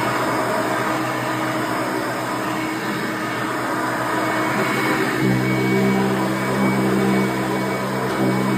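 A 1989 Hoover Elite 350 upright vacuum cleaner running steadily. About five seconds in, a deeper steady hum comes in and holds.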